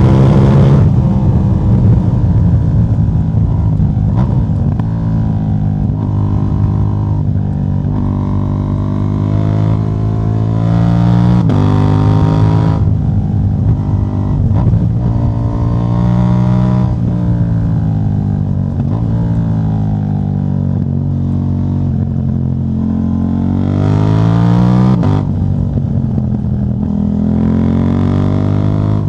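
KTM 790 Duke's parallel-twin engine, its catalytic converter removed, running with the note rising and falling as the throttle is opened and closed. It revs up hard and louder twice, about a third of the way in and near the end.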